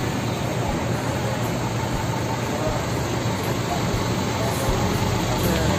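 Idling bus diesel engine: a steady low hum under an even hiss of noise.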